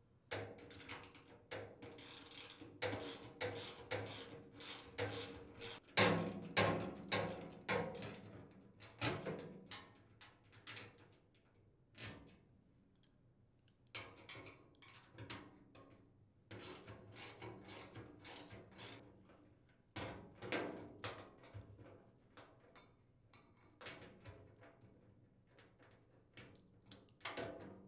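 Wrench and nuts working loose from bolts on a sheet-steel chipper shredder hopper: irregular metallic clicks, taps and knocks, with quieter gaps between.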